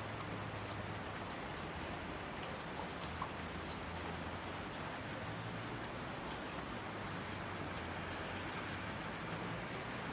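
Steady rain falling: an even hiss with many faint scattered drop ticks.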